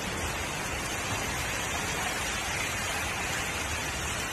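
Steady rushing and splashing of floodwater as a vehicle drives through a flooded road.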